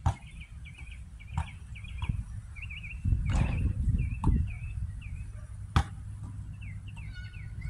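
A basketball bouncing on an outdoor hard court: a handful of sharp, separate thuds, one of them a little after five seconds in. A bird chirps over and over in short quick phrases above a low steady rumble that swells for a second or so in the middle.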